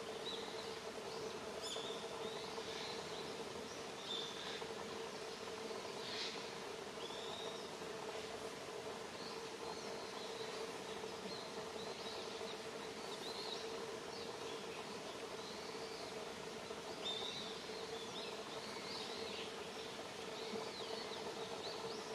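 Outdoor ambience: small birds giving scattered short chirps and calls over a steady low hum.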